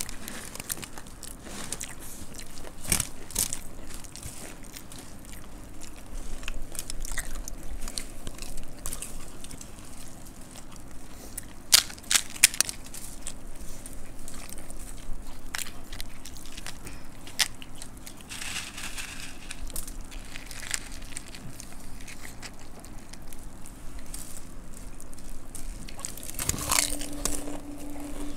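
Close-up crunching and chewing of dry puffed rice (murmura) mixed with crispy namkeen, with the crackle of the dry mix as hands scoop it from the platter; a few sharper crunches about twelve seconds in.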